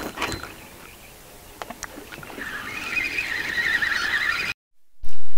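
Braided line whirring off a spinning reel's spool as a heavy spomb is cast out, a fluttering whir lasting about two seconds, with a few sharp clicks before it. It cuts off suddenly near the end.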